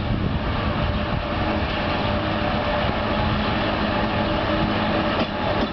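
Single section of a 2TE116 diesel locomotive approaching under power with a passenger train, its V16 diesel engine running with a steady hum over a low rumble.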